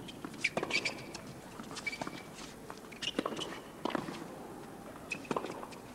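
Tennis point on a hard court: sharp racket-on-ball hits and players' footsteps with brief shoe squeaks, spaced irregularly through the rally.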